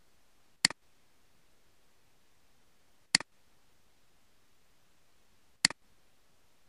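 Three computer mouse clicks about two and a half seconds apart, each a sharp press followed at once by a softer release, over a faint steady hiss.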